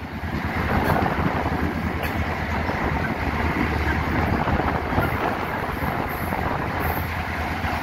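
EMD GL18B diesel locomotive under way, heard close beside its hood: a steady low engine drone mixed with rushing running noise, getting louder about a second in.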